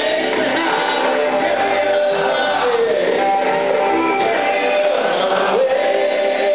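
Live rock band playing, with electric guitars, drums and a man singing. The sound is dull and roomy, recorded from the audience.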